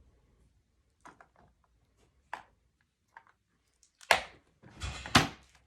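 A few light clicks and knocks, then two loud sharp knocks about four and five seconds in, in a small room.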